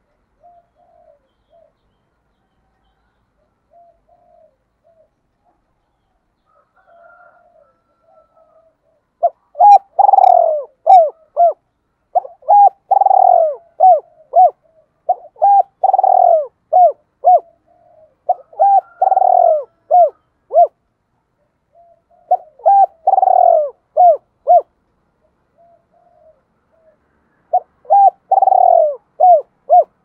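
Spotted dove cooing. Soft, quiet coos come first; then, from about nine seconds in, loud repeated phrases follow every three seconds or so, each a quick run of coos around a longer rolling note. This is the double-ending song style that Vietnamese dove keepers call 'gọi hai hậu' or 'giọng đôi'.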